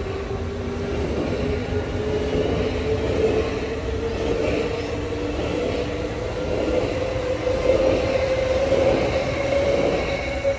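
SL commuter electric multiple unit (X60) running past on the tracks: a steady rumble of wheels on rail, with a whine that rises slowly in pitch throughout.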